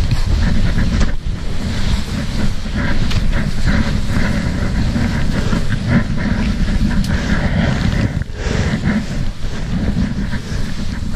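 Wind buffeting the microphone with a steady low rumble, over repeated crunching footsteps through deep snow.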